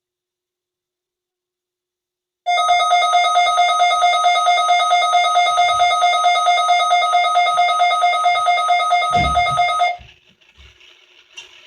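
Weather radio receiver's alert alarm set off by the Required Weekly Test: a loud, rapidly pulsing electronic beep that sounds for about seven seconds and cuts off just after a low thump, followed by faint handling knocks.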